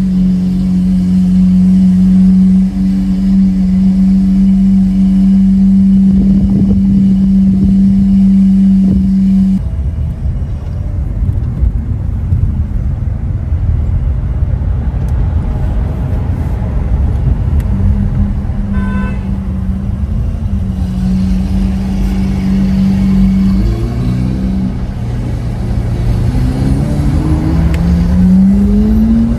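Lamborghini Aventador SV Roadster's V12 engine through a Capristo exhaust, holding a steady droning note for about ten seconds, then dropping back to a low rumble. Near the end it revs up twice in rising sweeps as the car accelerates.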